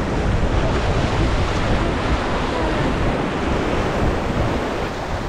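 Rushing whitewater of the Seti River around a raft, a steady loud wash of water with wind buffeting the microphone.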